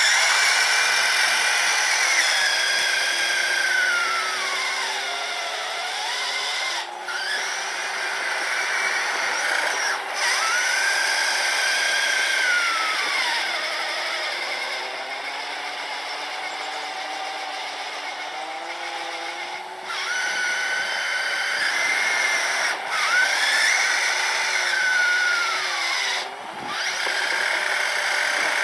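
Electric motors of a radio-controlled truck and its 3D-printed snowblower whining as it clears snow. The pitch rises and falls with the throttle, with a few short drops.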